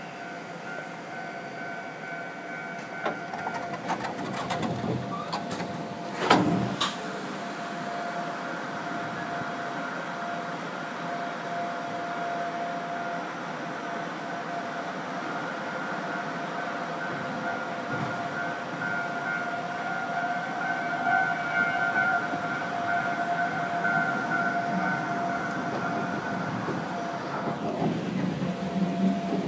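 Iyotetsu 3000 series (ex-Keio Inokashira Line 3000 series) electric train running, heard from inside the car: steady wheel-and-track rumble with a steady high electrical whine. There is one sharp knock about six seconds in, and the rumble grows louder near the end.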